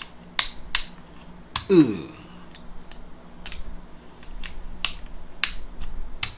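Sharp plastic clicks of keycaps being pressed onto the switches of a Kemove 60% mechanical keyboard, coming irregularly, about two a second. A short, loud downward-sliding tone cuts in about two seconds in and again at the very end.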